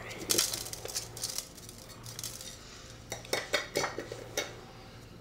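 Salt being tipped from a plastic container into an aluminium pot of seasoned raw chicken thighs, with sharp clicks and clinks of handling on the metal pot: a cluster just after the start and several more about three to four seconds in.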